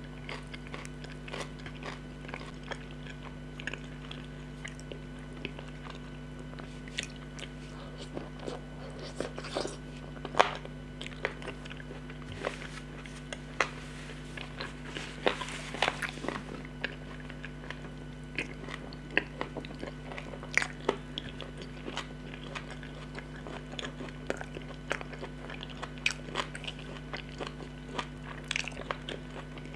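Close-miked eating sounds: wet chewing, lip smacks and mouth clicks as brown fufu and leafy greens are chewed, in an irregular stream over a steady low hum.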